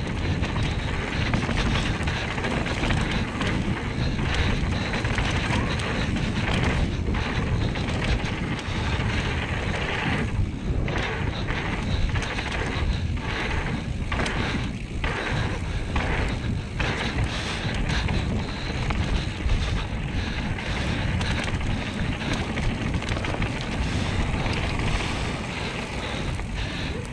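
Wind rushing over the microphone as a mountain bike rolls fast down a packed-dirt flow trail, with its tyres rumbling over the dirt; the rush eases briefly a few times about midway.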